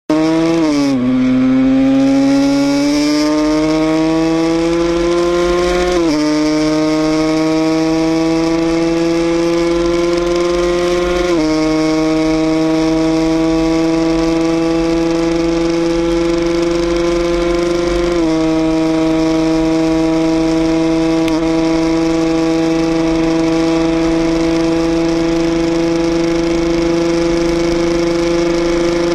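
Yamaha RXZ two-stroke single-cylinder motorcycle engine accelerating hard through the gears: the revs climb and fall back at each of four upshifts, then rise only slowly at high speed.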